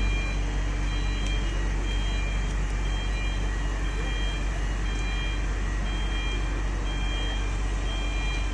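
Heavy construction machine's engine running steadily with a low rumble, while a high-pitched warning beeper sounds about once a second, as a reversing or motion alarm does.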